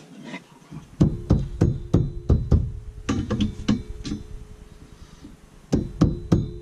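Background music with a heavy drum beat comes in suddenly about a second in: repeated deep bass hits and sharp percussion over a held synth tone.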